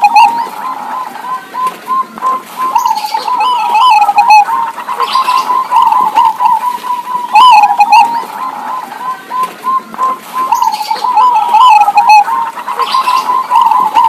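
Zebra doves (perkutut) in full song, two birds answering each other. They call in repeated phrases of quick, rippling coos a few seconds apart.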